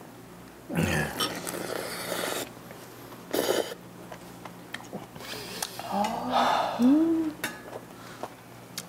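A person sipping and slurping spicy beef soup (yukgaejang) from a spoon, in two noisy bursts. A couple of short rising-and-falling hums of appreciation follow near the end.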